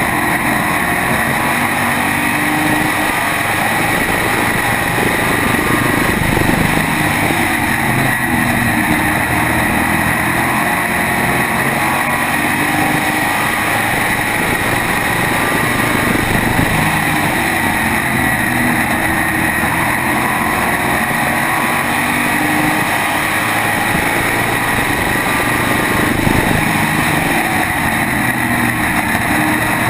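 SK modified race car's small-block V8 running hard at racing speed, heard from on board the car, its engine note rising and falling as it laps the oval.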